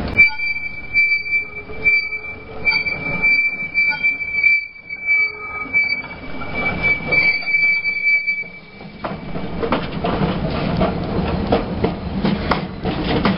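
Streetcar steel wheels squealing on a curved track: a steady high squeal lasting about eight seconds, then stopping. A Melbourne W2-class tram then rolls past on the street rails, with a rumble and a quick rattle of clicks from the wheels and body.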